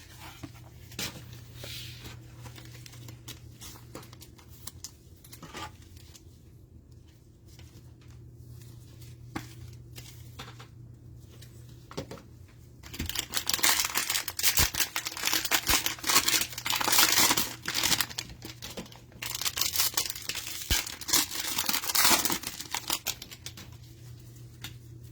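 Plastic cellophane wrapper of a cello pack of football trading cards being crinkled and torn open, loud crinkling in two spells about halfway through and again a few seconds later. Before that, only light rustles and clicks of cards being handled, over a steady low hum.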